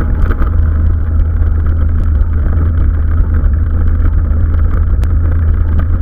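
Loud, steady wind rumble buffeting the microphone of a camera moving fast over a rough field track, with scattered small clicks and rattles.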